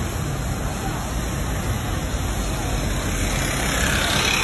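Steady rushing noise with a low rumble at a burning shopfront being hosed down, as fire-hose water spray and street traffic blend together. The hiss swells and brightens near the end.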